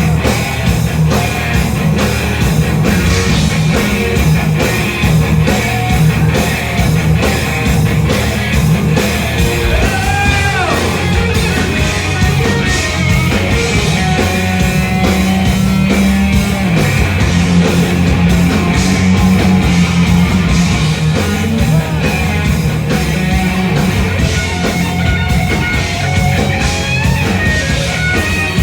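A live thrash metal band playing loud and steady: distorted electric guitars, bass and drums.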